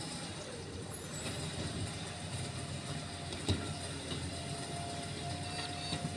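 Garbage truck engine running steadily, with a faint whine in the second half and a single knock about three and a half seconds in.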